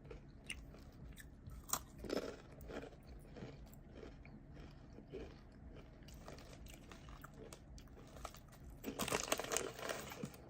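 Crunching and chewing of Takis Xplosion rolled corn tortilla chips, faint scattered crunches with a denser, louder run of crunching about nine seconds in.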